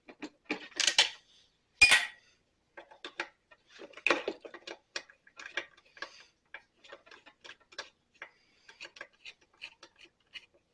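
Irregular light clicks and ticks, with two louder knocks about one and two seconds in; no engine is running.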